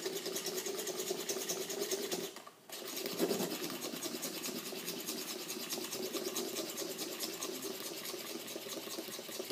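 Stainless steel French press plunger pumped rapidly up and down through cold milk, frothing it: a fast, even rhythm with a short break about two seconds in.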